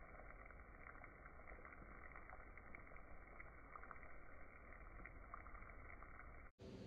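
Near silence: faint steady background noise of a phone recording, with a few tiny clicks, cut off abruptly near the end where a different sound begins.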